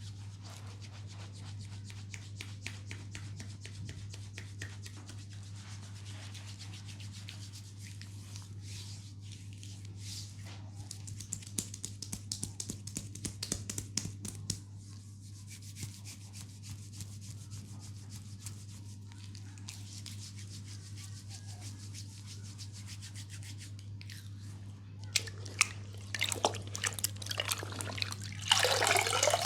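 Scratchy rubbing and brushing on the skin of a knee as it is cleaned, with fine crackling strokes over a steady low hum and a short, louder hiss near the end.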